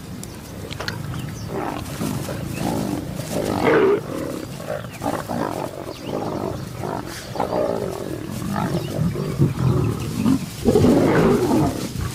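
Lions growling and snarling at one another in repeated rough bursts while squabbling over a kill, the loudest snarl near the end.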